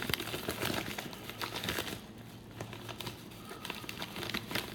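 Packaging crinkling and rustling in hand as padded, wrapped graded-coin packages are handled and unwrapped, in irregular crackly bursts.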